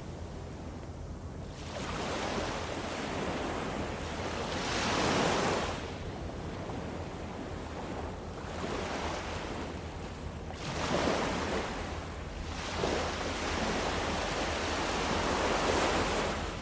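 Small ocean waves washing up onto the beach, each surge of surf swelling and fading every few seconds over a steady low rumble.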